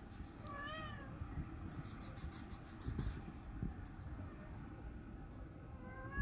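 A cat meowing: one short meow that rises and falls in pitch about half a second in, and a second starting near the end. Between them comes a high, rapid chirring of about ten quick pulses lasting just over a second.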